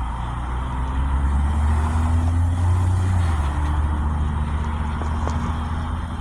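A motor vehicle passing on the road, its low engine rumble swelling over the first few seconds and then easing off.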